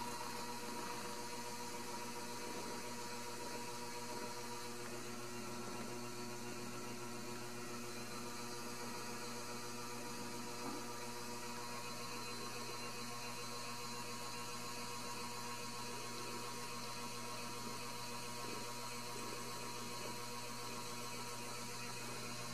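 Steady electrical hum with a faint whir, unchanging throughout.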